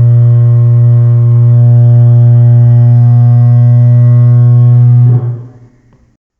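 A vuvuzela blast slowed down in editing into a deep, steady horn call, used as a Parasaurolophus call. It holds one low pitch for about five seconds, then drops away and fades out.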